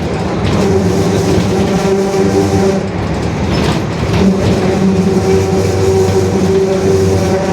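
Differential of a Mercedes-Benz OF-1721 BlueTec 5 city bus droning very loudly as the bus drives: a steady whine over the running noise, with a couple of short knocks around the middle.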